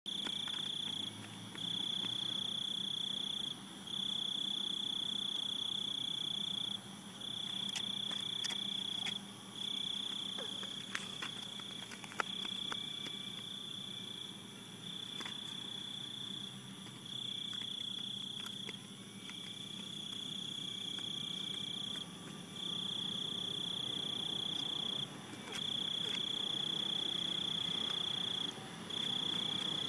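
A cricket trilling: one steady high-pitched trill that runs in stretches of two to three seconds, broken by short pauses, over a faint low hum.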